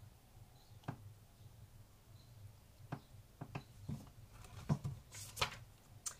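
Quiet room with a low steady hum, broken by a few faint taps and clicks and a brief rustle about five seconds in, as an open paperback picture book is held up and then lowered.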